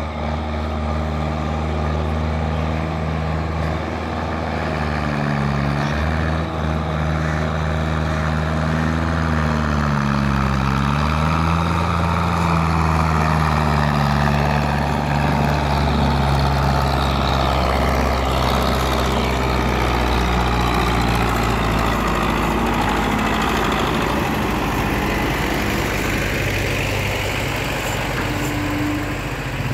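Diesel engine of a farm tractor working under heavy load as it hauls a fully loaded sugarcane trolley past. Its pitch sags and recovers twice in the first half, then it runs on steadily.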